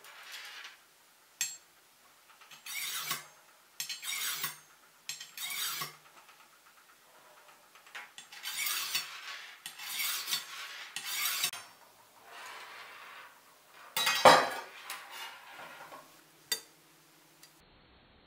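Steel blades of a kitchen knife and then a pair of scissors drawn through the V-notch of a handheld tungsten-alloy pocket sharpener: a series of short, rasping metal scrapes with pauses between them, one stroke much louder than the rest about two-thirds of the way through.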